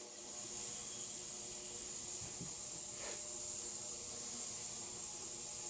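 Steady high-pitched hiss in the background, with one faint click about three seconds in.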